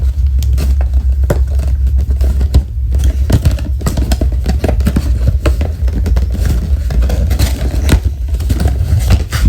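Cardboard box and plastic packaging of a carbon monoxide alarm being opened by hand: repeated scraping, crinkling and clicks, over a steady low rumble.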